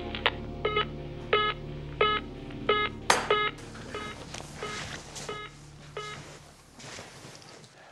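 Telephone handset sounding the disconnect tone after the caller hangs up: short, even beeps about every two-thirds of a second, nine or so, growing fainter about halfway through, over a low steady musical drone.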